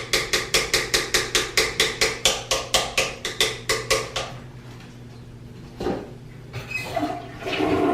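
Toilet bowl being scrubbed with a toilet wand: quick, even scrubbing strokes, about six a second, that stop about four seconds in. A single knock follows near six seconds.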